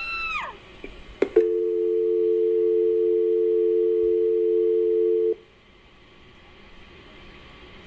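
A held scream cuts off, then a telephone line clicks and a steady dial tone of two low notes sounds for about four seconds before stopping abruptly.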